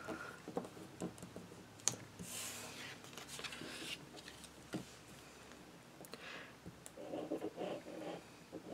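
Faint rubbing and rustling of paper as cut card pieces are pressed down and slid about on a cutting mat, with a couple of light taps.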